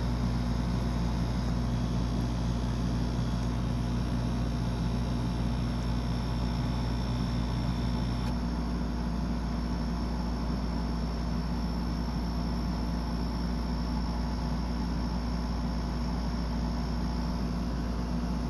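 Friedrich D70BPA 70-pint dehumidifier running with a steady hum of compressor and fan. About eight seconds in, one part of the hum drops out while the rest keeps going.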